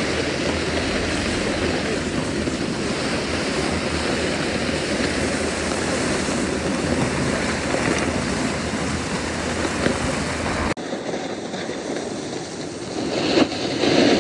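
Snowboard sliding and scraping down a snow slope, with wind rushing over the microphone as a steady loud roar. About eleven seconds in it drops abruptly to a quieter, thinner rush, and a few louder scrapes follow near the end.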